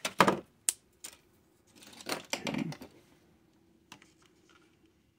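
Thin white plastic strips and sheets being handled on a wooden work board: several sharp clicks and taps in the first second, a scraping, sliding patch about two seconds in, then one more click near four seconds.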